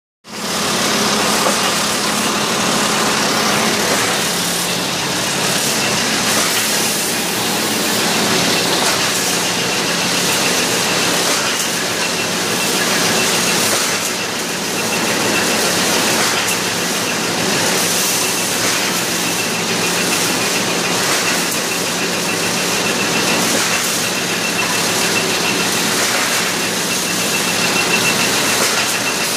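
Wire-processing factory machinery running: a steady, loud mechanical din with a low hum and a faint high whine.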